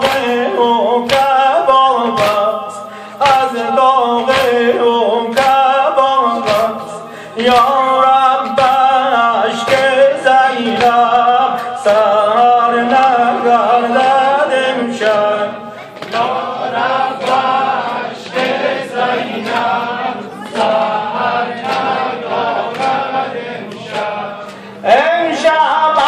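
A male reciter sings a devotional chant over a microphone, with a group of men chanting along. Regular sharp hand slaps of chest-beating (matam) keep time, a little more than one a second. The slaps thin out in the middle and come back strongly near the end.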